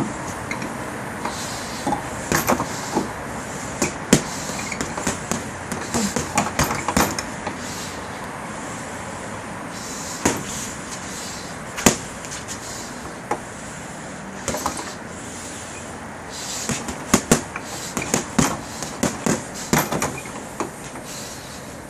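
Boxing gloves punching a duct-tape-wrapped heavy bag with sharp slaps in quick combinations and short pauses between them, the busiest flurry coming near the end.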